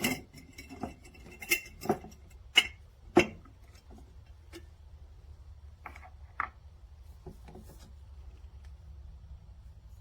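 Hard objects being handled: a quick run of sharp clicks and knocks in the first few seconds, then a few softer taps, over a faint low hum. No grinder motor is running.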